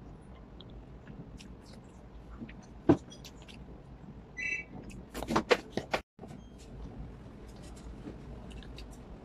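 Close-up eating sounds: a person chewing by hand-fed bites, with mouth clicks and lip smacks. A single sharp knock comes about three seconds in, a brief high squeak follows, and then a quick run of sharp clicks before the sound cuts out for a moment.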